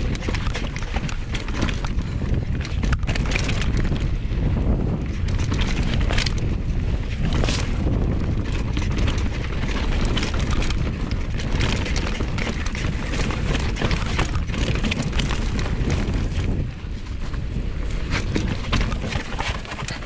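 Wind noise on the microphone and a mountain bike's tyres rolling over dirt and rock, with steady clattering and knocks from the bike over the rough trail. The noise drops somewhat about three-quarters of the way through as the bike slows.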